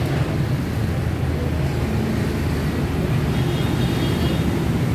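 Steady urban road traffic: a continuous low rumble of passing motor vehicles on a busy city street.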